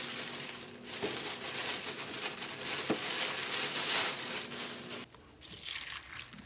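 Plastic shopping bags rustling and crinkling as groceries are unpacked from them, loudest about four seconds in and stopping abruptly about five seconds in.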